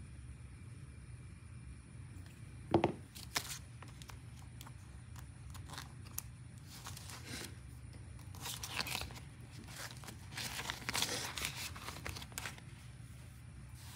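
Crinkling of a clear plastic binder envelope and rustling of paper banknotes as bills are handled and slid into it, in a few bouts, with a sharp click a little under three seconds in.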